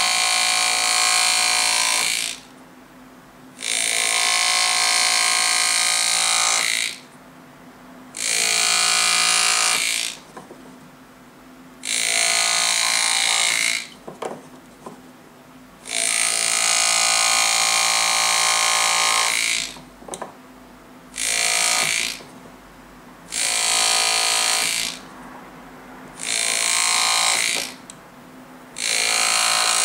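Powered engraving handpiece driving a square graver, buzzing in about nine bursts of one to three seconds with short pauses between, as it cuts the outline strokes of a monogram into a gold signet ring.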